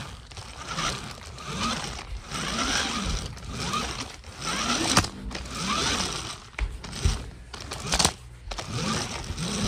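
Rubbing and rustling of a phone as it is carried and jostled by hand, with a couple of sharp knocks and low rising-and-falling hums repeating about once a second.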